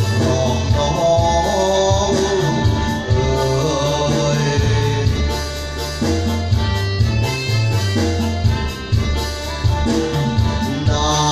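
Backing track of a Thai song in an instrumental break: a melody over a steady rhythmic bass beat.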